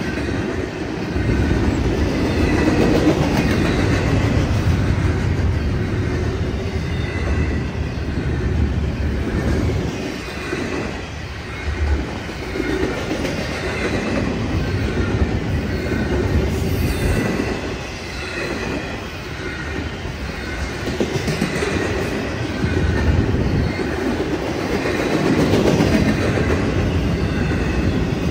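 Norfolk Southern freight train's cars rolling past, a steady rumble with the clatter of wheels over the rail joints and a faint high ringing from the wheels on the rails.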